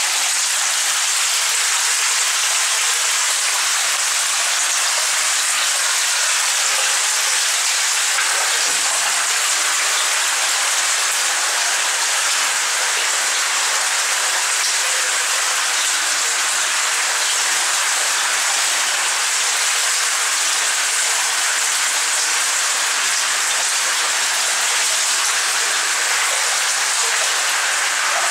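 Water dripping and trickling into pooled water, a steady rain-like hiss.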